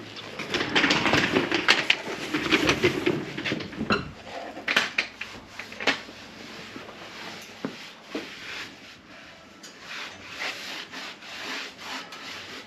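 Rapid rubbing and scraping strokes with clicks, loudest over the first four seconds, then quieter scattered clicks and light knocks.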